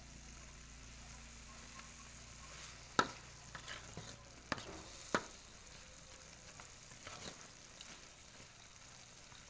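Stir-fried baby corn and tofu sizzling in a wok as a spatula stirs it, with a few sharp clicks of the spatula against the pan, the loudest about three seconds in and two more around four and a half and five seconds.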